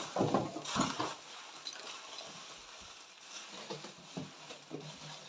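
Packaging and vacuum-cleaner parts being handled and rustled during unboxing: a few loud rustles and knocks in the first second, then quieter rustling and small clicks.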